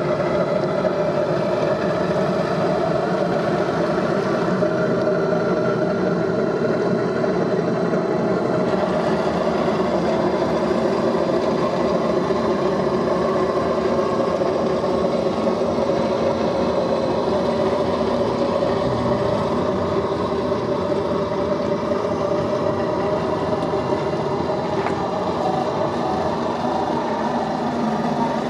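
CrossRC BC8 Mammoth 8x8 radio-controlled crawler truck running steadily as it crawls over rock: a constant mechanical hum whose pitch wavers slowly.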